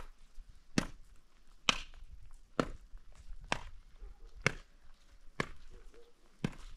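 Long-handled shovel blade striking into hard, dry earth in a steady rhythm: eight sharp strikes, a little under one a second.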